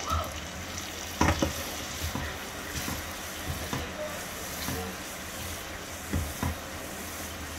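Sauce sizzling in a frying pan while lemon halves are squeezed in and stirred with a wooden spatula, with several sharp knocks against the pan, two in quick succession near the end.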